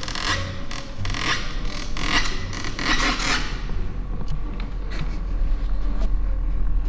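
A quick run of rubbing, scraping noises, five or six of them over the first three seconds or so, then only a few faint ticks.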